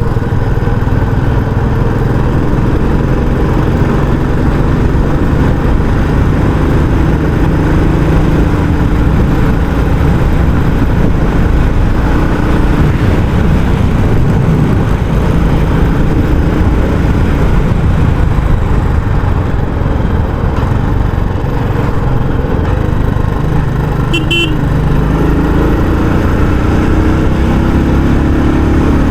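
Royal Enfield Classic 350's single-cylinder engine running steadily on the move through its stock exhaust. A short vehicle horn toot sounds once about 24 seconds in, and the engine's pitch rises near the end as it picks up speed.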